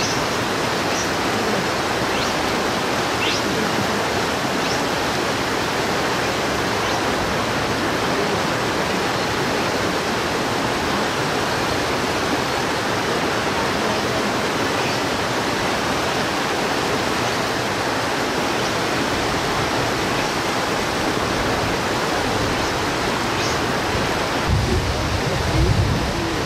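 Steady rushing of a mountain stream, an even wash of noise that does not change. A brief low rumble comes in near the end.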